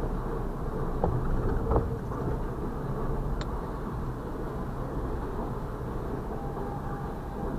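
Freight train of covered hopper cars rolling across a road crossing, heard from inside a car: a steady low rumble of the cars passing, with two sharp knocks about one and two seconds in.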